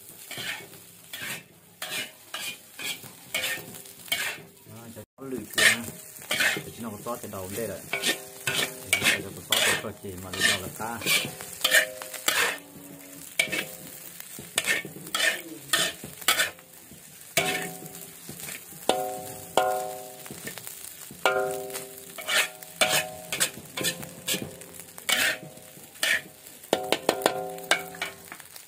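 Rice stir-frying in a wok: a metal spatula scrapes and knocks against the wok in quick repeated strokes over a steady sizzle, the pan ringing briefly on some strokes.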